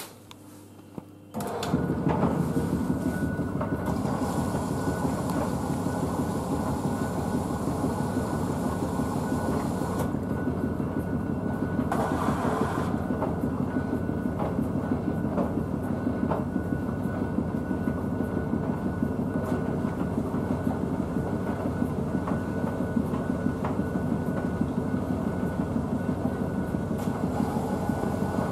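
Blomberg WNF9448 washing machine filling with water at the start of its wash cycle: a steady rushing of water through the inlet and into the drum, starting abruptly about a second and a half in.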